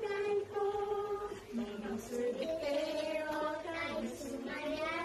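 A young girl singing alone, holding long notes with smooth rises and falls in pitch.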